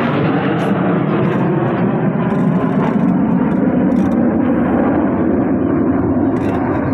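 Aircraft flying past: a loud, steady engine rush whose high end gradually dulls as the aircraft moves away.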